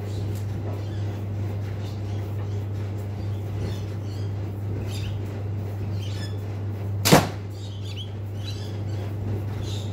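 A single sharp crack about seven seconds in: an arrow shot from a compound bow striking the target. Faint bird chirps come and go.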